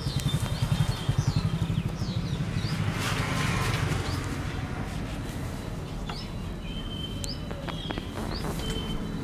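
Small birds chirping again and again in short high notes. Under them a low, rapid pulsing runs for the first two seconds, with a brief rush of noise about three seconds in and a few sharp clicks near the end.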